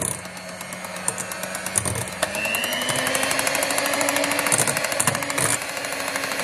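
Electric hand mixer running at low speed, its twin beaters whipping cream in a glass bowl with a rapid ticking. Its whine rises a little and gets louder about two seconds in.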